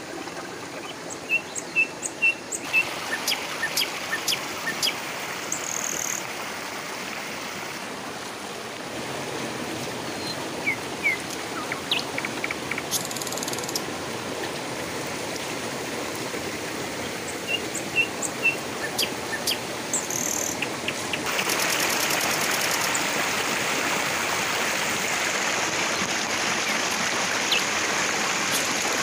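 Small rocky stream rushing steadily, growing louder about three quarters of the way through. Over it come clusters of sharp clicks and taps and a few short high bird chirps.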